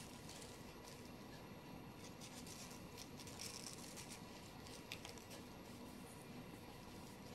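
Faint rustling and light scratching of paper tea bags and their tags being handled and pressed onto a painted board, with one small sharp click about five seconds in.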